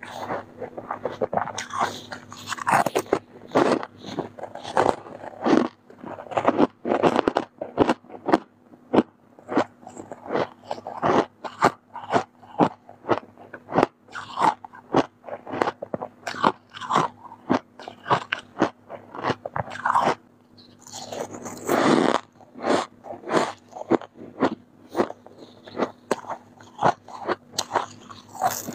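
Freezer frost being bitten and chewed close to the microphone: a long run of sharp, crisp crunches in quick succession, louder for a moment about three quarters of the way through.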